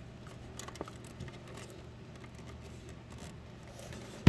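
Handling noise from a circuit board as its mounting screws are taken out: a few faint clicks and scrapes over a low steady hum, then one sharp knock right at the end.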